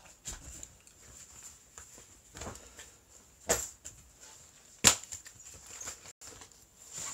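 Handling noises of someone shifting on a sofa: soft rustling with two sharp knocks, one about halfway through and one a second and a half later, over a faint steady high whine.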